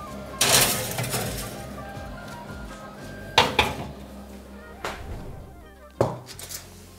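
A metal pan scraping as it slides onto an oven rack, then the oven door shutting with a sharp knock and a smaller click. Near the end the pan is set down on a wooden board with a knock. Background music plays underneath.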